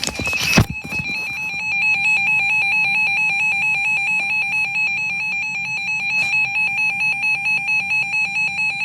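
Weather radio receiver's alert alarm beeping rapidly and evenly in one steady pitch, sounding for a tornado warning. A brief clatter of handling comes at the very start.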